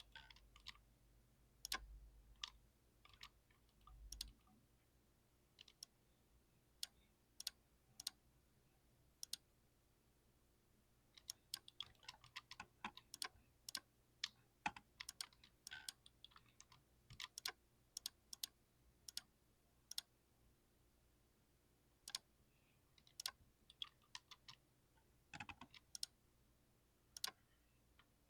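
Typing on a premium 60% keyboard: faint, irregular keystroke clacks, scattered at first, then in quicker runs through the middle with short pauses between words.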